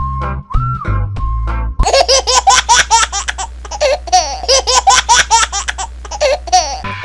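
High-pitched cartoon laughter over music with a steady bass: rapid bouncing laugh syllables start about two seconds in. Before that there is a held electronic tone.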